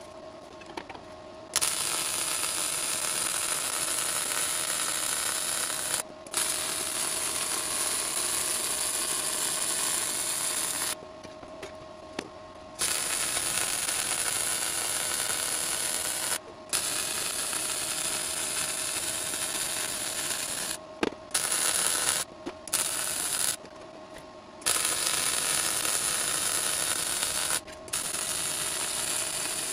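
Electric arc welding on air boxes: a steady hiss in runs of a few seconds as each bead is laid, stopping and starting several times, with a few very short bursts about two-thirds of the way through.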